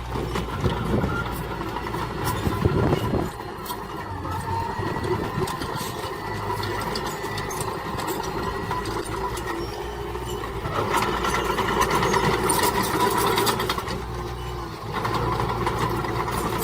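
Diesel engines of heavy earthmoving machinery running steadily, swelling louder at times, with scattered clanks and rattles.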